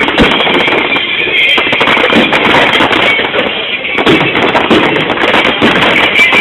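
Music for a fireworks display with fireworks going off over it: one sharp bang about a quarter second in, then smaller cracks and pops.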